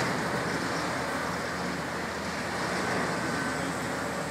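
High-reach demolition excavator working its crusher jaws on a concrete building, heard as a steady, even rumble and hiss of machinery, water spray and crumbling debris, with no single crash standing out.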